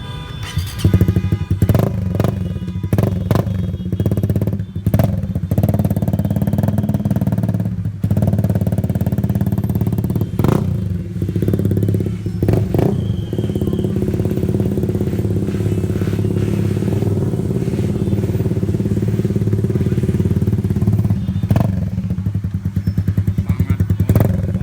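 Suzuki Satria FU fuel-injected single-cylinder motorcycle running through an aftermarket stainless Triovale T-4 exhaust on a road test, a steady deep note with a few short breaks and knocks along the way.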